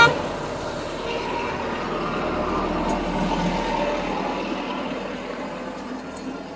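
A motor vehicle going by, its running noise swelling about two to four seconds in and then slowly fading.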